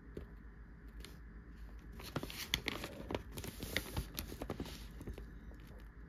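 Newspaper pages rustling and crinkling as they are slid along by hand, a run of crackly paper noise starting about two seconds in and lasting about three seconds.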